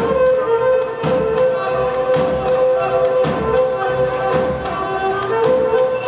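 Live Pontic Greek folk dance music: a held, sustained melody over drum beats, with a strong stroke about once a second and lighter ones between.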